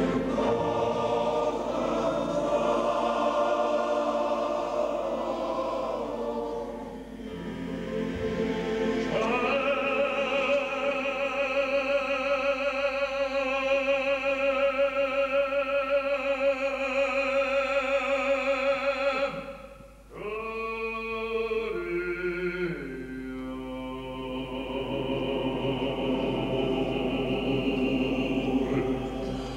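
Male-voice choir singing, with an operatic solo voice holding one long note with vibrato over the choir from about a third of the way in. After a brief break about two-thirds of the way through, the voices glide down and the choir sings on more softly.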